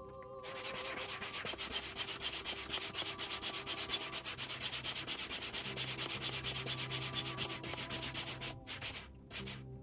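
Double-action hand pump inflating an inflatable kayak's bladders: a rapid, even run of rasping air-and-piston strokes that starts about half a second in and breaks off near the end.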